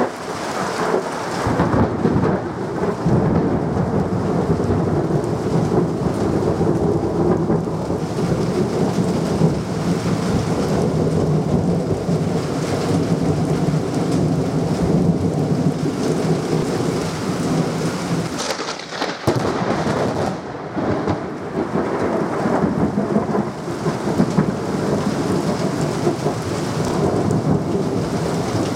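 Heavy rain falling with continuous, rolling thunder rumbling through it; the rumble eases briefly about two-thirds of the way in.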